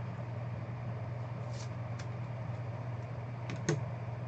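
Steady low room hum with a few faint clicks, then a sharper tap near the end, as trading cards are handled on a table.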